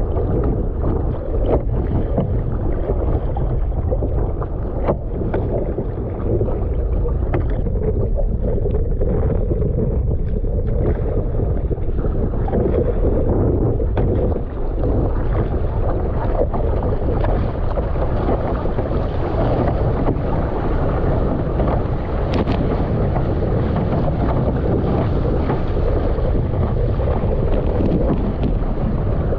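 Wind buffeting the microphone of a bow-mounted camera over water rushing and splashing past an Epic V7 surfski as it is paddled hard through chop. Paddle-blade splashes strike repeatedly in the first half, then the rush of water grows steadier as the boat speeds up surfing a wave.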